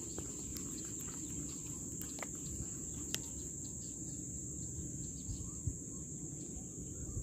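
Steady high-pitched insect drone, like crickets, over a low rumble, with a few faint ticks.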